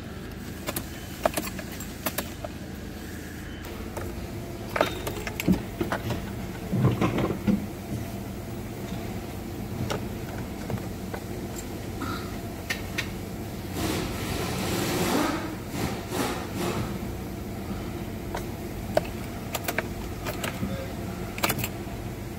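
Steady workshop hum with scattered clicks, light knocks and short clatters of handling.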